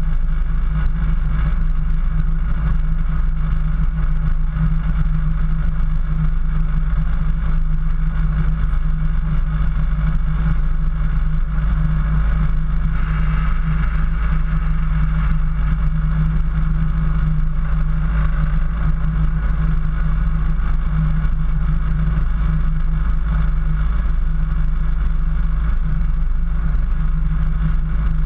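Off-road 4x4's engine running steadily as it drives through snow, heard from a camera on its hood: an even drone with a strong low rumble and no revving.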